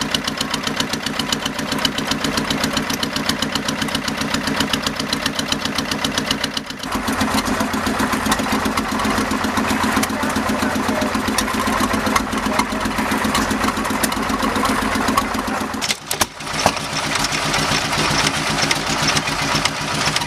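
Vintage stationary engines running one after another, each with a fast, even beat. First a Lister 14 hp engine driving a DC generator; after a break about seven seconds in, a different engine; and from about sixteen seconds a small single-cylinder stationary engine with two heavy flywheels.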